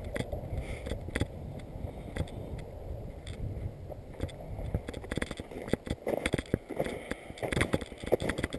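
Wind rumbling on the camera's microphone, with scattered crackles and knocks that grow busier in the last few seconds. No steady motor whine.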